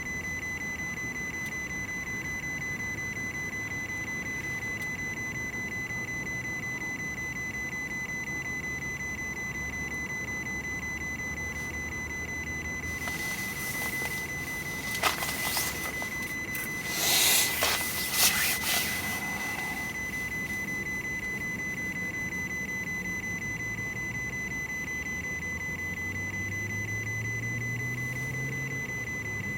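A steady high-pitched electronic whine, one thin tone with fainter overtones above it. Over it, from about halfway through, come several seconds of loud scraping and knocking noise with a few sharp clicks.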